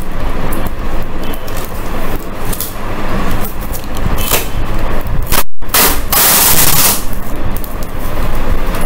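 Clear packing tape being pulled off its roll: a loud rasp lasting about a second, a little past the middle, amid crinkly handling of the tape and board, over a steady low rumble. There is a split-second dropout in the sound just before the rasp.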